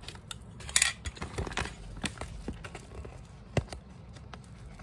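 Scattered light clicks and taps of small hard objects, with a short hiss about a second in and a sharper click past the middle.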